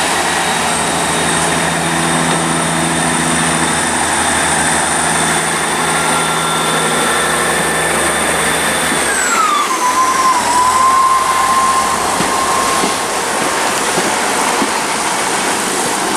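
Diesel train at the station platform: a steady engine hum with a high whine over it. About nine seconds in the engine hum drops away and the whine slides down in pitch, leaving a general rumble.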